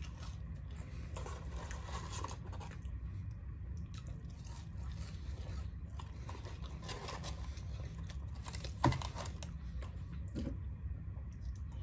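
A man chewing french fries with soft, irregular crunching, and one sharper, louder click about nine seconds in.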